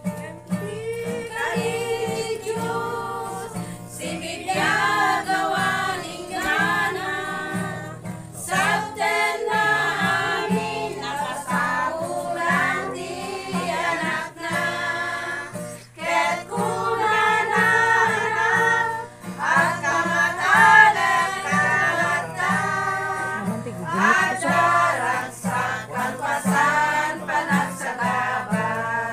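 A small group of women singing a song together, with a steady instrumental accompaniment underneath.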